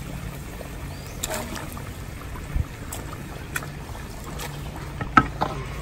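Pieces of raw pork rib dropped by hand into a copper cazo of bubbling liquid over a wood fire, giving a few soft splashes and plops, over a steady low hum.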